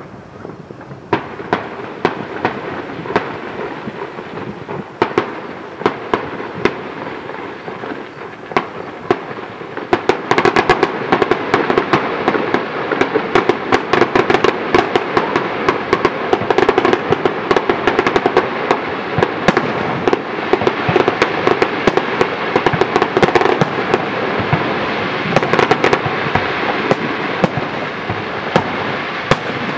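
Fireworks bursting and crackling in a dense run of sharp pops, growing louder and thicker about ten seconds in.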